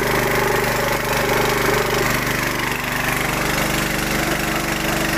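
NLG 6.5 hp petrol water pump's single-cylinder four-stroke engine running steadily, with the rush of water gushing from its discharge outlet.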